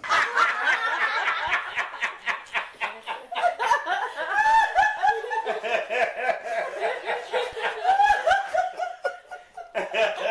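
A group of people laughing in reaction to a joke's punchline, many voices overlapping and dying down near the end.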